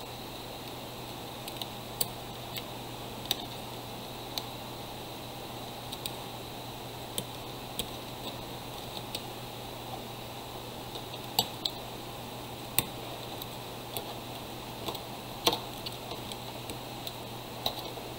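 Irregular light clicks and taps of an opened power bank's plastic casing and battery being handled, over a steady low hum and hiss.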